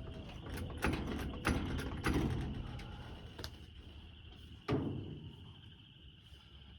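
Mechanical clicks and knocks from hand work on a wooden coop being jacked up and leveled, irregular, the loudest about a second, two seconds and near five seconds in.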